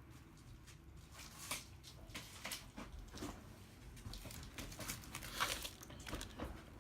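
Irregular rustling, crinkling and light clicks of plastic packaging and parts being handled, as a new replacement iPad mini screen is unwrapped and handled on the bench.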